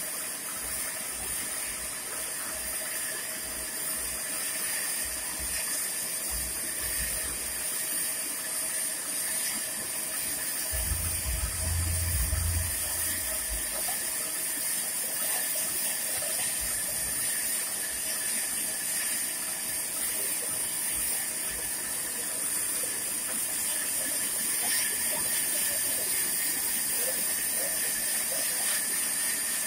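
Belt-driven bandsaw and its electric motor running with a steady hiss and no clear rhythm. A low rumble comes in about eleven seconds in and lasts about two seconds.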